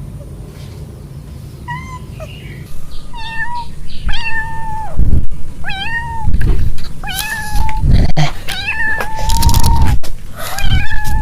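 Young kittens meowing, high thin calls that rise then hold, repeated about once a second and sometimes overlapping. They start faint and grow loud and frequent about three seconds in. These are the calls of kittens separated from their mother cat in a strange place.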